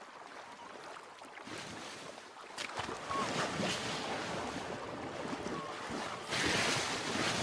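Sea water lapping and splashing around a kayak in choppy water stirred up by passing sea lions. It is quiet at first, grows louder about three seconds in, and has its loudest splash about six seconds in.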